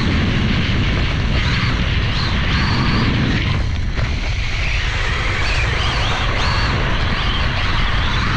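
Losi Promoto-MX 1/4-scale RC motorcycle's brushless electric motor whining, its pitch rising and falling repeatedly with the throttle, over a heavy low rumble of wind on the bike-mounted camera's microphone.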